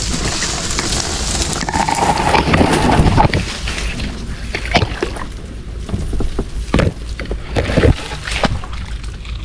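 Water sloshing and splashing, with several sharp knocks in the second half and a steady wind rumble on the microphone.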